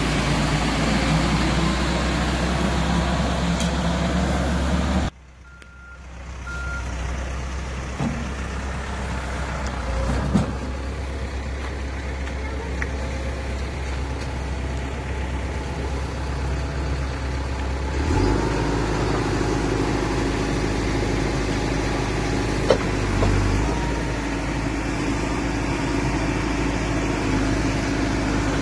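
Caterpillar 416F2 backhoe loader's diesel engine running steadily with a deep hum. About five seconds in the sound drops away abruptly and comes back, and two short beeps are heard in that gap.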